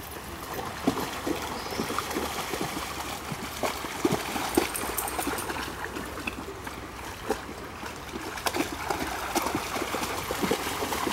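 Shallow creek water running over riffles, with dogs wading through it and making frequent small, irregular splashes and sloshes.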